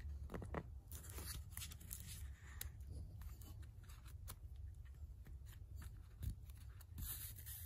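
Faint rustling and small ticks of paper sheets and thread being handled during hand-sewing of a coptic book binding, with a longer hissing rustle near the end as the thread is drawn through.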